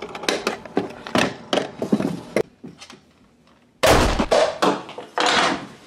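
Clicks and knocks of a Nerf Rival foam-ball blaster being handled, then a sudden loud shot from it just before four seconds in, followed by another noisy burst near the end.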